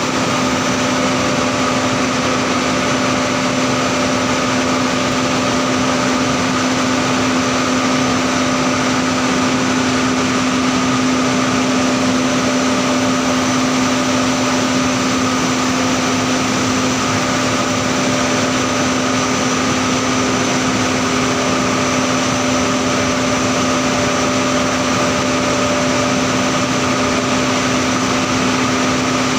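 Steel galvanizing line machinery running steadily: a loud, even mechanical noise with a constant low hum and a few steady higher tones over it.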